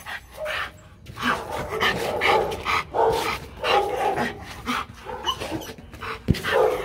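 Rottweiler barking over and over in quick succession, about two or three barks a second, starting about a second in: barking on the trainer's "speak" command.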